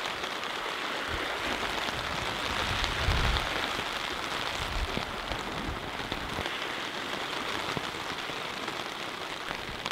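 Steady rain pattering on a tarp shelter, a dense patter of drops, with a short low rumble about three seconds in.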